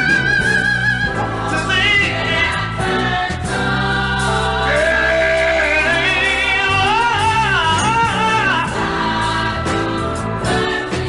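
Background music: a singing voice with vibrato over held chords.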